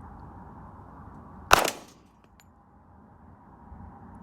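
A single shot from a Springfield Armory XD .45 Tactical pistol, about a second and a half in, with a brief echo trailing after it.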